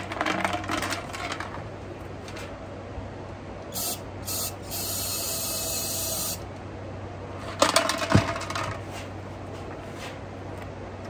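Spray hiss: two short bursts about four seconds in, then a steady spray for about a second and a half. A couple of seconds later comes a brief rattle and clatter of loose screws and nuts inside the part being cleaned out. A steady low hum runs underneath.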